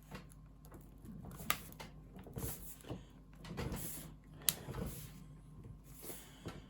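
Aluminium bottom cover of a MacBook Pro being handled and pressed back onto the laptop: light scraping and rustling with a few sharp clicks, the sharpest about four and a half seconds in.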